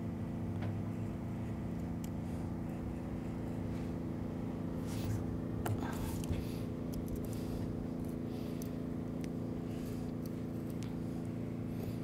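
A steady low mechanical hum runs throughout, with scattered light scrapes and ticks from about five seconds in as a razor blade cuts the pond liner along the filter's bolted face plate.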